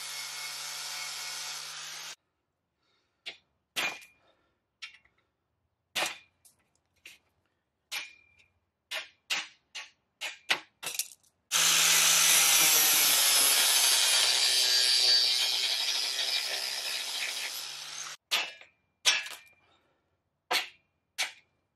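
Angle grinder with a thin cutoff wheel cutting steel bed-frame angle iron, stopping about two seconds in. A series of sharp hammer strikes on the steel follows, some ringing briefly, as the rivets are knocked out. The grinder runs again on the steel for about six seconds from about halfway, then more hammer strikes come near the end.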